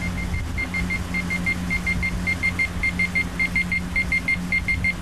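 Timex T035 digital alarm clock's timer alarm going off: a high electronic beep repeating in quick short bursts, getting louder as it goes on.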